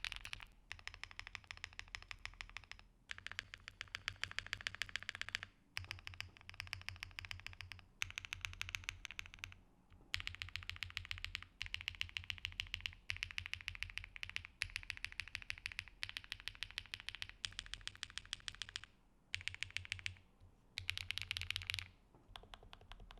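Modifier keys of a Qwertykeys QK75N gasket-mount keyboard are typed on. It has HMX Xinhai linear switches, an aluminium plate, full foam and GMK keycaps. The keystrokes come as fast, repeated clacks in about a dozen runs of one to two seconds, with short pauses between.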